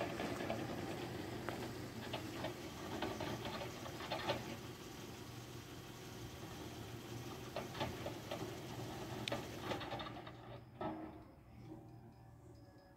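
Wind buffeting the microphone, a steady rushing noise with scattered light clicks, easing off about ten seconds in.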